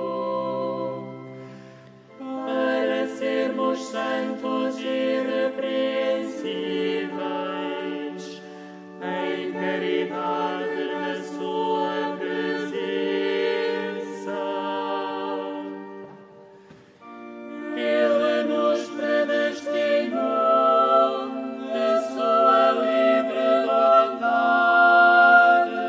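A choir singing a sacred piece live, in sustained chords phrase by phrase. The singing breaks briefly about two seconds in and again about two-thirds of the way through, then comes back louder near the end.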